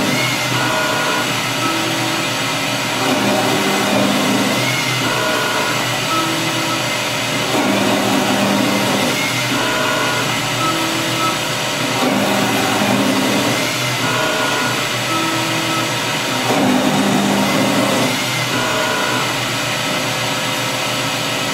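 Metal lathe cutting a 24 threads-per-inch internal thread in automatic passes under a stepper-driven electronic leadscrew. The spindle runs steadily while the stepper motors whine in short tones of changing pitch as the tool feeds in, cuts, pulls back and returns. The cycle repeats about every four to five seconds.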